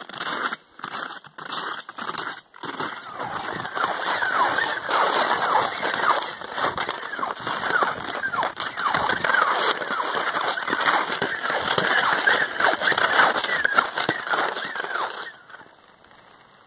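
Skis crunching and scraping over icy, refrozen crust on a packed snow trail, stride after stride: the ice on the crust is what makes the travel noisy. Separate crunches come first, then a continuous gritty scraping that stops abruptly about fifteen seconds in, leaving a quiet background.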